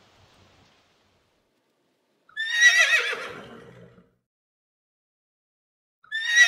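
Horse whinnying twice: a loud, quavering neigh about two seconds in that slides down in pitch and fades over about a second and a half, and a second, matching neigh starting near the end.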